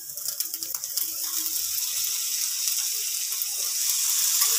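Lemon juice poured from a steel ladle onto hot rice in a frying pan, sizzling: a few light clicks, then a steady hiss that builds about a second in.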